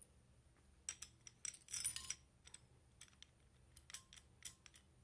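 Faint handling of small hard parts: a run of light irregular clicks, with a brief scrape a little under two seconds in.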